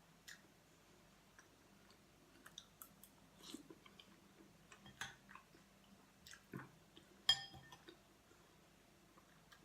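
A person chewing and biting food, close up, in soft scattered smacks and crunches, with a sharp clink about seven seconds in.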